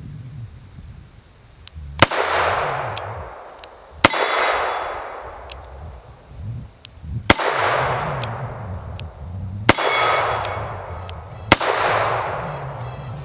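Ruger SP101 .357 Magnum snub-nose revolver firing five shots, spaced about two to three seconds apart, which empties its five-round cylinder. Each shot is a sharp crack followed by a long echo that dies away over a couple of seconds.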